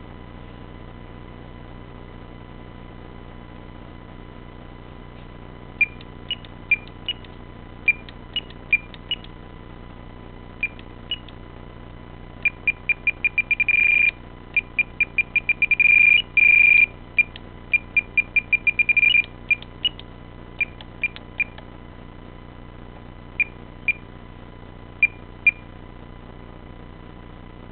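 Spektrum DX7 radio-control transmitter beeping as its trim switches are clicked, most likely the elevator trim: single short high beeps, quick runs of beeps in the middle with a couple of longer held tones, then a few scattered beeps.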